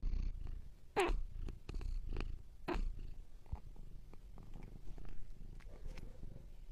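Domestic cat purring in a low, steady rumble, with a few light clicks and a short squeak falling in pitch about a second in.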